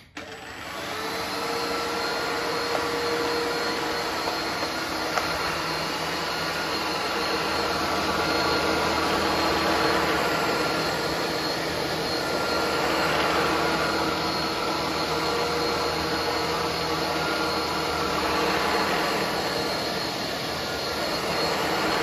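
Philips SpeedPro Aqua Plus cordless stick vacuum switched on in its second power mode: the motor comes up to speed over about a second, then runs with a steady hiss and whine, swelling slightly as the nozzle is moved.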